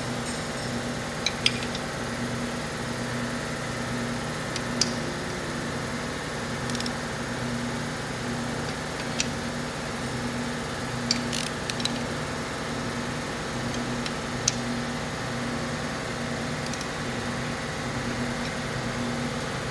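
A steady motor drone with a low hum that swells and fades slowly, and scattered sharp metallic clicks, single or in pairs, from a socket wrench working the engine's bearing cap bolts.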